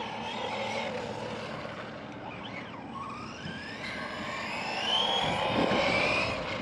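Brushless electric motor of a Team Corally Syncro 2WD RC buggy whining as it is driven, its pitch rising and falling with the throttle and climbing during the second half.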